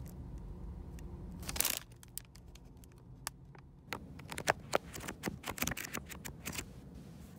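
A brief rustle of a paper pastry bag, then a thick stack of printed paper pages thumbed through, the sheets flicking off the fingertip in a quick run of ticks from about four seconds in.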